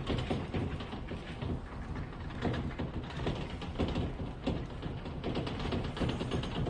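A building shaking in an earthquake: a continuous low rumble with irregular rattling and knocking from doors and fittings.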